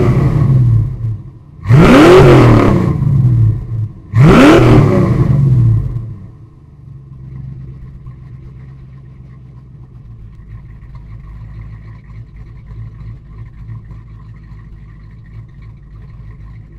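1991 Ford Mustang LX's 5.0 V8 through shorty headers, a catless X-pipe and a Bassani cat-back exhaust, blipped three times in quick succession, each rev rising and falling back. It then settles into a steady idle for the rest of the time.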